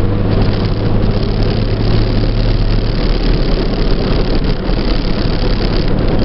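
Truck engine droning steadily with tyre and road noise, heard inside the cab while cruising in top gear at freeway speed.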